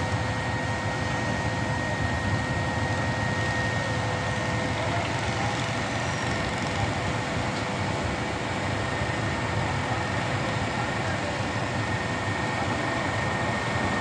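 Diesel engine of a truck-mounted concrete boom pump running steadily under load, with a steady high whine over the engine note.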